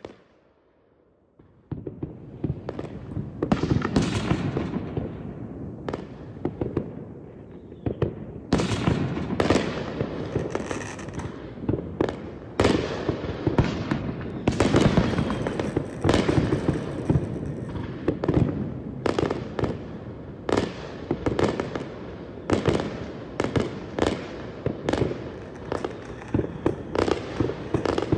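Aerial fireworks show: shells bursting in quick succession, dozens of sharp bangs over a steady wash of noise, starting after about a second and a half of near silence.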